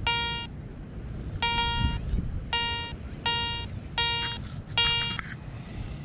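Garrett ACE 400 metal detector sounding its target tone: six short beeps at uneven intervals, one as the coil passes over a buried metal target each time. It is the signal of a strong target, over a low steady rumble.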